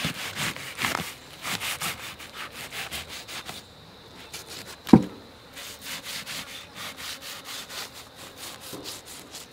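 Knife slicing and scraping away the thin membrane on a mutton carcass, in a run of short strokes several a second, with one sharp, louder snap about five seconds in.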